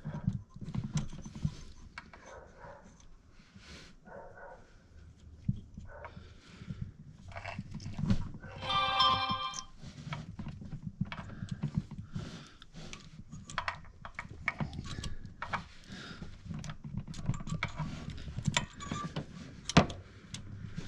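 Hand-tool work on an engine: scattered metal clicks and knocks, with a high squeak lasting about a second and a half near the middle.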